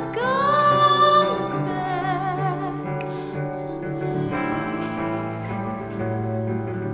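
Music: a woman's voice singing long, held notes with vibrato over sustained instrumental backing.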